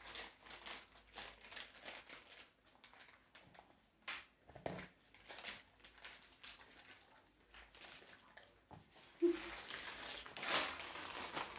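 Plastic piping bag rustling and crinkling as it is handled and filled, in short irregular strokes that grow louder and denser near the end.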